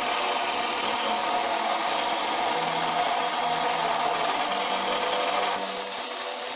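Bench belt grinder running steadily with a loud, even hiss. About five and a half seconds in, the sound turns brighter and hissier as the steel spanner is put to the belt.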